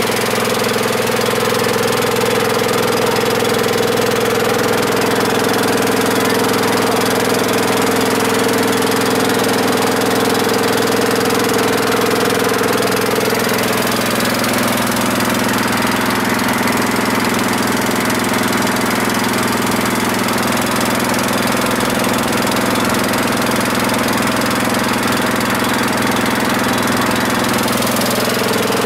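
Engine of a wooden passenger river boat running steadily under way, with water and wind hiss; its tone shifts slightly about halfway through.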